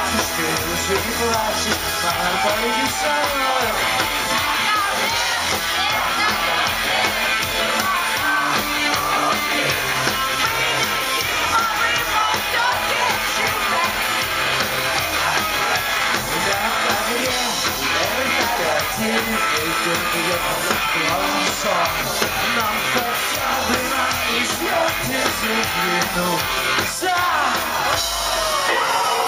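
Live rock band performing: a male lead singer over electric guitar and drums, recorded from within the audience with crowd noise mixed in.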